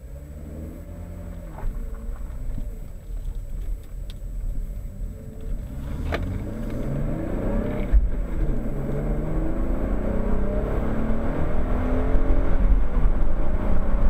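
Chevrolet Camaro engine heard from inside the cabin as the car pulls away and speeds up, with road noise underneath. The engine note climbs in pitch and grows steadily louder. A single click comes about six seconds in.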